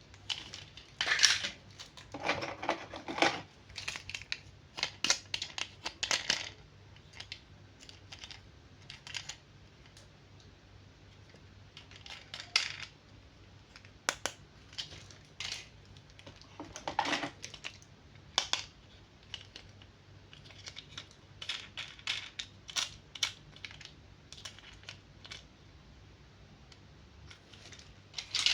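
Hands handling plastic toy figures and their packaging: irregular clicks, taps and crinkles at an uneven pace, with short pauses between bursts.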